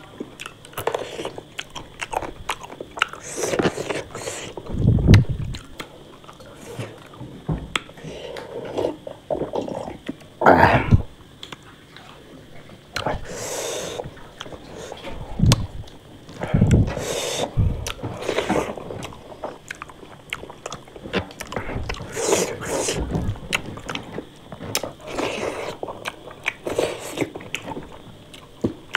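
A person eating close to the microphone: irregular chewing and biting sounds, some of the bites crunchy.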